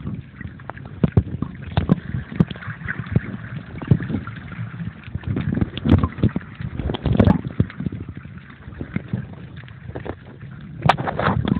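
Water sloshing around a phone sealed in a waterproof pouch, heard muffled through the plastic, with irregular knocks and thumps as the pouch moves in the water.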